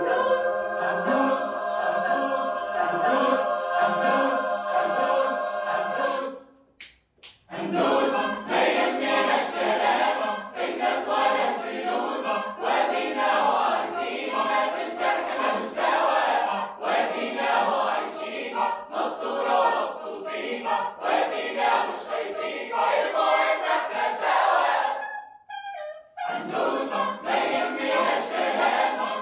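A large mixed choir of men and women singing a cappella in harmony. It holds a steady chord for about six seconds, breaks off briefly, then moves into a rhythmic passage with a regular beat, with another short pause near the end before it picks up again.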